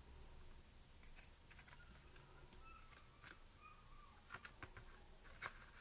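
Faint taps and light clicks of paper cardstock being handled and pressed against a tabletop, with a few sharper clicks in the second half.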